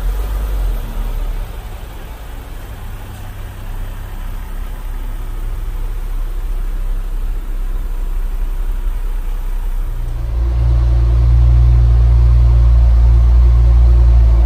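Porsche Cayenne Coupé's engine running at idle, a steady low hum that grows louder about ten seconds in and cuts off abruptly at the end.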